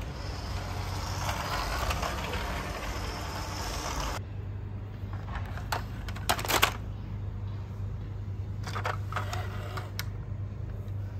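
A remote-control toy tanker truck's small electric drive motor and gears whirring steadily as it drives across a tiled floor. About four seconds in this cuts to a quieter room with a low hum, where plastic toy trucks give a few light clicks and clatters as they are handled.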